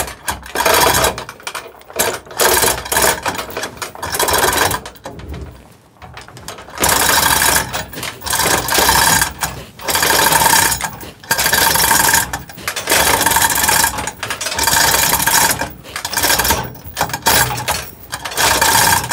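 Manual chain hoist on a gantry crane being hauled by its hand chain to raise a car engine: repeated clattering, ratcheting strokes of chain and pawl, about one pull every second and a half, with a short pause a few seconds in.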